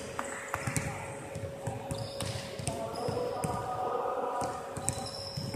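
Basketballs bouncing on a hardwood gym floor in irregular thuds, over faint distant voices.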